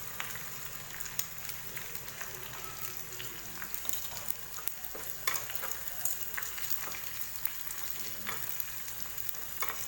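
Shallots and dried red chillies frying in hot coconut oil with mustard seeds and fenugreek for a tempering: a steady sizzle with scattered crackles and pops.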